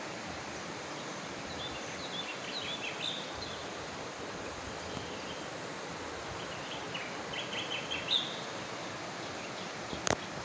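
Small birds chirping in two short spells of twittering over a steady outdoor hiss, with a single sharp click near the end.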